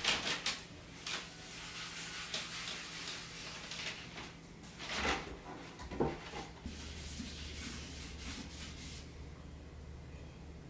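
Cloth rag wiping wood stain across a plywood board: a run of rubbing strokes, the loudest near the start and about five seconds in, then quieter with a low hum underneath.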